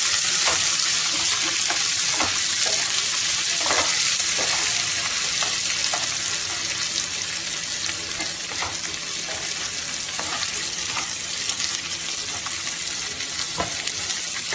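Chopped onion sizzling in hot ghee in a pan, a steady frying hiss. A spatula scrapes and taps against the pan now and then as the onion is stirred.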